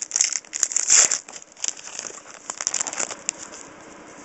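A trading-card pack wrapper crinkling and tearing as it is opened by hand. The crackling is loudest in the first second or so, then thins to fainter scattered crackles.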